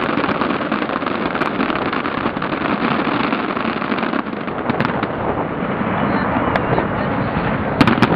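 Fireworks exploding in a dense, continuous crackle of bursts, with sharper bangs standing out about five seconds in and again, loudest, near the end.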